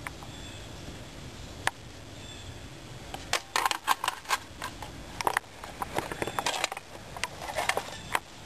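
Footsteps on grass: an irregular run of sharp crackles and clicks starting about three seconds in, after a single click, over faint steady hiss.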